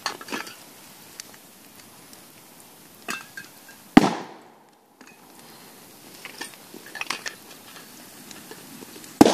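Aerosol cans bursting in a brush fire: two loud bangs, about four seconds in and again near the end, each trailing off briefly. Smaller pops and crackles come in between.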